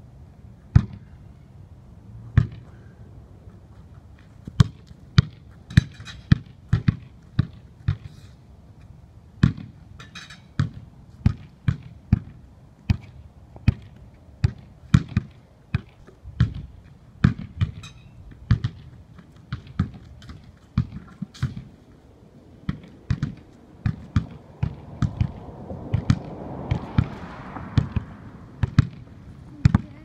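Basketballs being dribbled and bounced on hard ground: a long run of sharp, separate bounces, one or two a second at an uneven pace.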